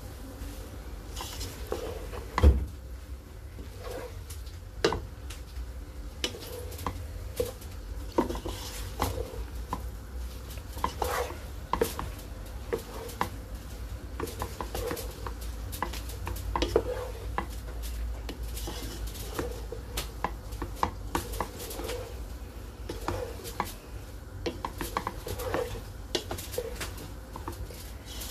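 Wooden spatula stir-frying rice in a large pot, scraping through the rice and knocking irregularly against the pot's sides and rim, with one louder knock about two and a half seconds in.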